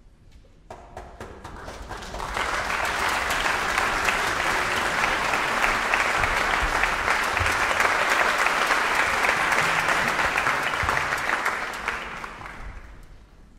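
Audience applauding: a few scattered claps about a second in swell into full, steady applause, which dies away near the end.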